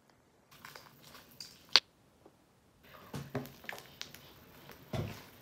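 Hands kneading and squishing slime in water in a container: irregular wet squelches, with one sharp click a little under two seconds in.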